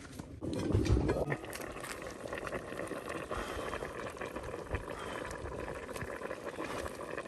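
Pot of fresh palm nuts bubbling at a boil, with a louder burst of handling noise about a second in.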